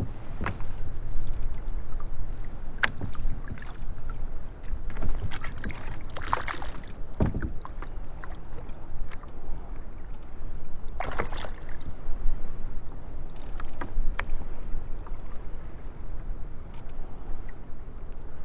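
Handling noise aboard a kayak on the water: a steady low rumble with scattered sharp knocks and clicks, and a few louder rustling or splashing bursts, the biggest about six to seven seconds in and about eleven seconds in.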